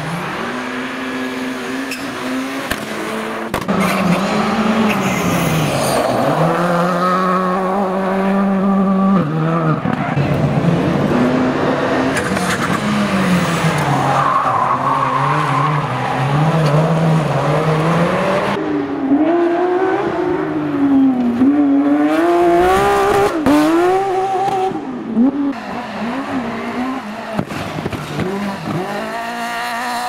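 Rallycross cars driven hard: a Citroën DS3 WRX's turbocharged engine revving up and down through gear changes with tyres squealing as it slides, then, in the later part, a Citroën Saxo rally car's engine revving higher with rapid rises and falls in pitch.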